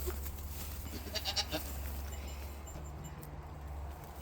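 Goats bleating briefly and faintly a couple of times, over a steady low hum.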